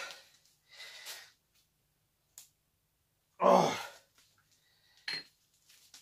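A man straining with effort: short puffing breaths, then a loud groan about three and a half seconds in, as he forces a ball out of a tight silicone mould.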